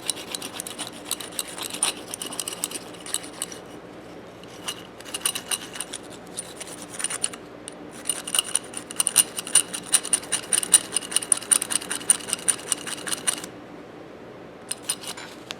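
Rapid scratching and scraping strokes on the steel ratchet head as it is scrubbed clean, in runs with short pauses, stopping near the end except for a few last strokes.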